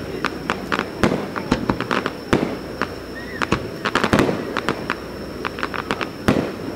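Fireworks display: a rapid run of sharp crackling bangs, with a few heavier booms about a second apart among them.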